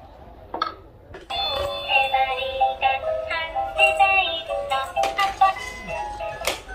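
A baby's plastic activity walker plays its electronic tune: a couple of light knocks on the toy, then a synthesized melody with a sung voice starts abruptly a little over a second in and keeps going.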